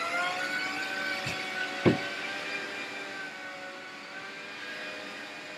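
Hoover floor scrubber's motor whining up to speed over the first second, then running steadily. A single sharp knock about two seconds in.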